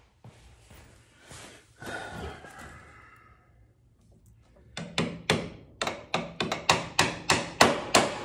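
A hammer tapping a 21 mm deep socket used as a driver, about fifteen quick sharp blows in roughly three seconds starting about halfway through, to seat a washer down over a riding mower's front steering spindle. A short scrape or rattle about two seconds in comes before the tapping.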